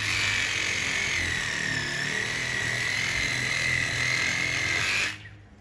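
Yellow cordless electric saw running steadily with a high whine as it cuts through a small tree at its base, stopping suddenly about five seconds in.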